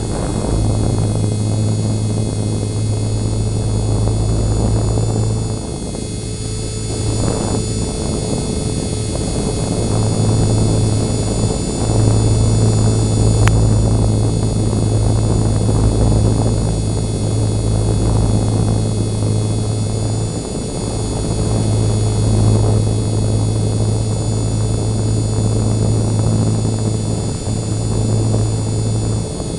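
E-flite MSR micro electric RC helicopter flying, its rotor giving a steady low buzz under a high electric-motor whine, dipping briefly twice as the throttle eases. It is running at or near full throttle, weighed down by an added camera so that it barely hovers.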